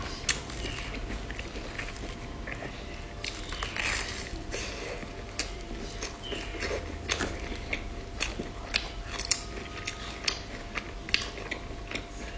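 Close-up eating sounds of a person biting and chewing soft fried bread with a sticky filling: wet chewing with sharp mouth clicks every second or so. A faint steady hum sits underneath.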